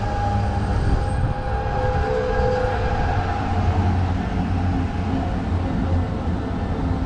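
Zurich tram passing close by: a steady low rumble of wheels on the rails with a faint whine in several tones over it.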